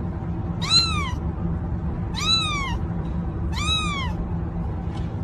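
A domestic cat meowing three times, about a second and a half apart, each meow rising and then falling in pitch, over a steady low rumble.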